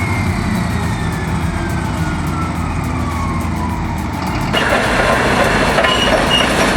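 Heavy diesel machinery running, with a whine that falls steadily in pitch over the first few seconds. About four and a half seconds in it cuts suddenly to a louder, rougher machine noise with short repeated squeals or beeps.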